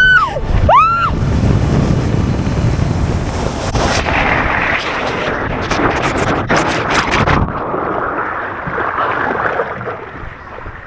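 Rushing water and wind on the microphone during a ride down a water slide, with sharp splashing streaks near the end of the run, which cuts off about seven and a half seconds in. Two short high-pitched rising-and-falling calls in the first second.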